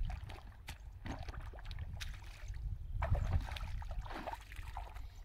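Bare feet squelching and splashing through shallow muddy water, in irregular steps, over a steady low rumble.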